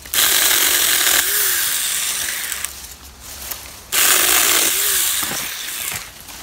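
Saker 4-inch 20-volt cordless mini electric chainsaw cutting through green sapling stems in two runs. Each run starts suddenly and lasts about two and a half seconds, with a short pause between.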